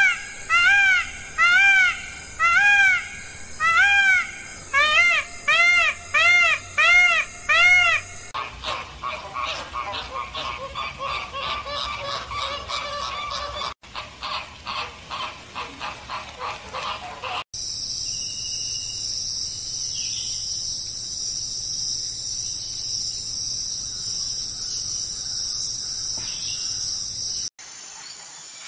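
A run of separate animal recordings. First come repeated honking calls, each rising and falling in pitch, about one a second and then faster. Then come rapid pulsed calls, and then a steady high-pitched drone.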